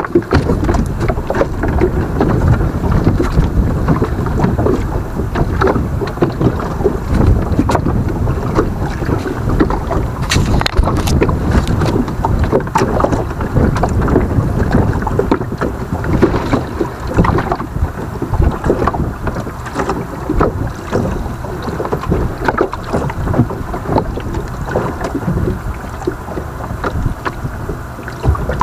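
Wind buffeting the microphone, with water lapping and slapping against the hull of a small boat; the noise rises and falls unevenly, with no engine running.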